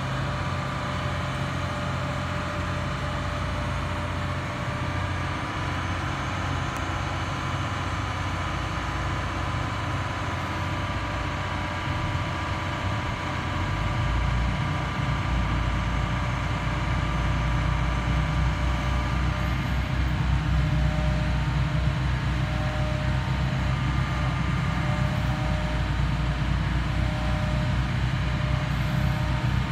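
Boat straddle carrier's engine running under load as it drives, with a steady whine over the low engine note, getting louder about halfway through.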